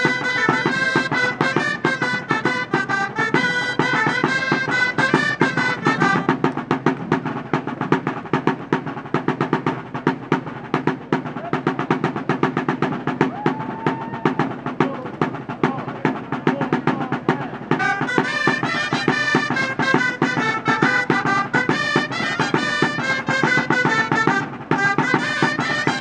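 A band of gralles, loud Catalan shawms, playing a dance tune over a steady drum beat. For a stretch in the middle the shawm melody drops back and the drum carries on nearly alone, then the gralles come back in full about two-thirds of the way through.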